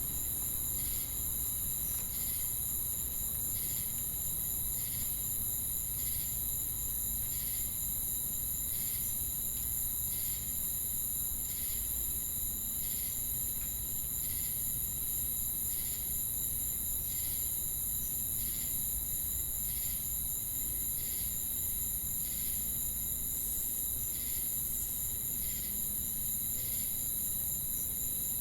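Night chorus of crickets: a steady high-pitched trill, with a chirp repeating evenly a little faster than once a second over a low background rumble.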